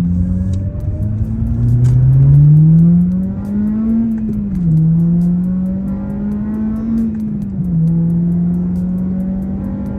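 2006 Acura RSX Type S's four-cylinder engine pulling under hard acceleration: the revs climb, then drop sharply at an upshift, climb again, and drop at a second upshift before holding steady.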